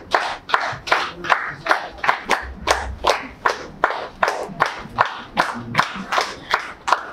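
Audience clapping in unison, a steady rhythm of about three claps a second.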